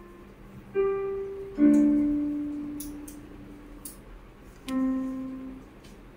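Background music: slow, sparse piano notes and chords, each struck and left to ring out and fade, with a few short faint clicks between them.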